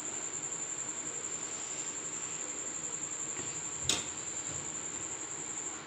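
A steady high-pitched trill held without a break over a soft even hiss, with one sharp click about four seconds in.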